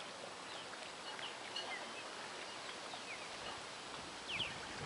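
Small birds chirping in short, falling notes, scattered through and loudest as a quick pair about four seconds in, over a steady outdoor background hiss.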